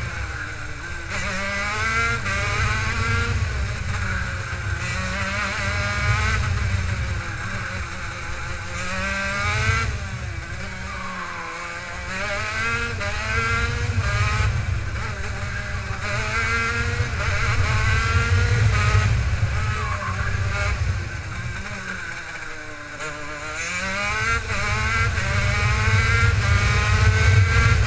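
Racing kart engine heard onboard, revving up along the straights and dropping in pitch as the driver lifts for the corners, rising and falling again and again, with the deepest drops about 11 and 23 seconds in. Wind buffets the microphone underneath as a heavy low rumble.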